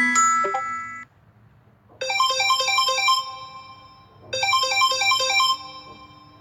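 Samsung Galaxy Note10+ ringtone melody: a quick run of short pitched notes, played twice with a short gap between. The last notes of a previous phrase die away in the first second.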